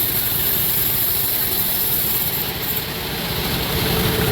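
Sawmill machinery running with a steady mechanical rumble and a high hiss, dipping slightly about three seconds in; a steady whine joins near the end.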